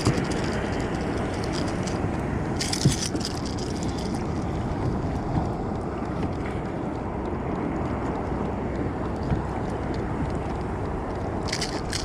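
Steady wind rushing over the microphone with water moving around a kayak on the sea. Two short crackling bursts come about three seconds in and again near the end.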